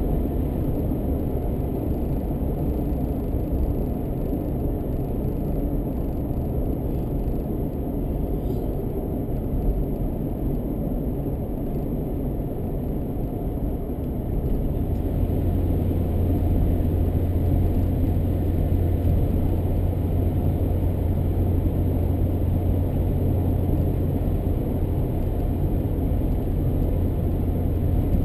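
Car driving along the road: steady engine and tyre noise, with a low drone that grows louder about halfway through.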